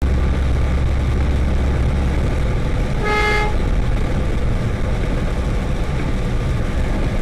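Steady cab noise of a truck driving on a wet highway in the rain: engine rumble and tyre spray. One short horn toot of about half a second sounds around three seconds in.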